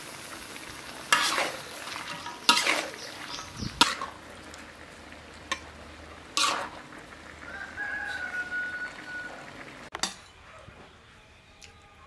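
A metal spatula scrapes and tosses bean sprouts and tofu in a sizzling wok, in a few separate strokes. About eight seconds in, a rooster crows once, in one long call.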